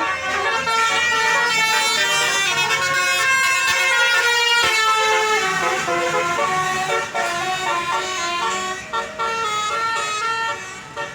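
Tourist bus's telolet Basuri horn, a set of multi-tone air horns, playing a melody: several held tones sound at once and step from note to note every half second or so.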